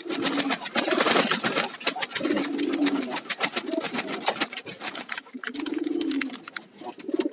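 Domestic pigeons cooing: a few low, drawn-out coos, about three in all, over a fast rattle of clicks that thins out about five seconds in.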